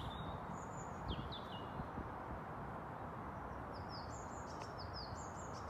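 Small songbirds chirping over a steady outdoor hiss: a few short falling chirps about a second in, then a run of repeated falling chirps near the end.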